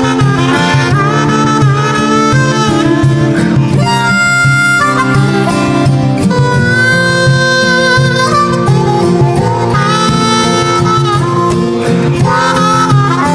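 Background music: a melody in long held notes over a continuous accompaniment.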